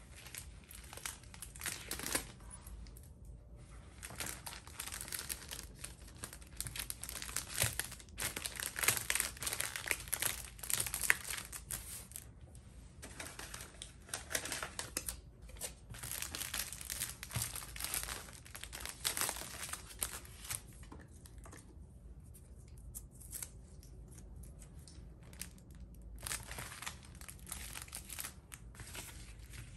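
Clear plastic sleeves crinkling and rustling as they are handled and envelopes are slid into them, in irregular crackles that come and go with a few quieter pauses.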